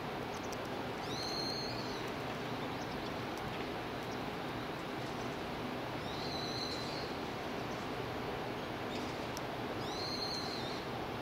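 Steady background noise, with a bird calling three times about four seconds apart, each a short high-pitched call that rises and then falls.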